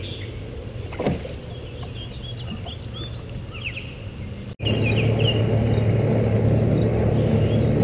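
Small birds chirping in quick short notes over a steady low hum, with a brief whoosh about a second in. Partway through, the sound cuts out for an instant and the low hum comes back louder.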